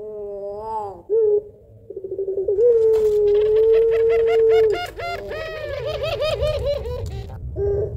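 Puter pelung ringneck dove cooing. A short arching note and a stuttered start run into one long, steady, deep coo of about two seconds, followed by a quick run of short notes, about five a second, and a brief final coo near the end.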